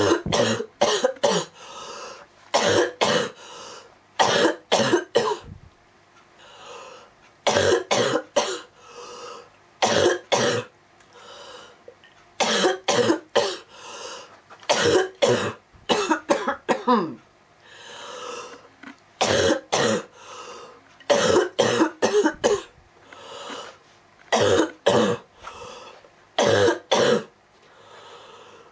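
A girl with a cold coughing a very rough cough, in repeated fits of two to four hard coughs each, one fit after another.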